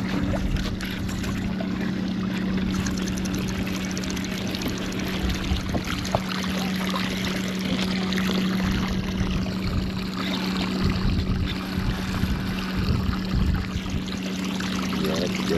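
Water splashing and trickling around a small fishing boat, over a steady low hum.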